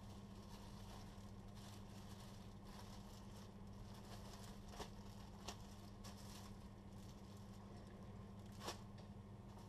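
Clear plastic packaging bags rustling and crinkling as bagged clothes are picked up and handled, with a few sharp crackles midway and near the end. A steady low hum runs underneath.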